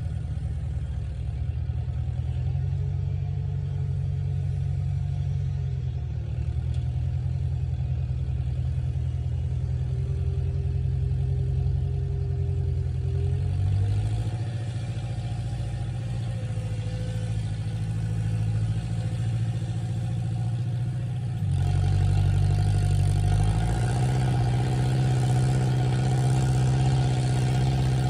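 International 544 tractor engine running steadily while tilling the garden, its pitch stepping up and down a little as the load changes. It gets louder about three-quarters of the way through.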